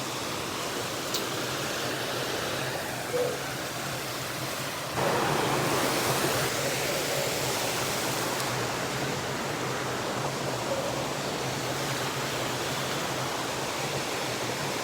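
Waterfall rushing steadily, a steady roar of falling water that steps up in loudness about five seconds in.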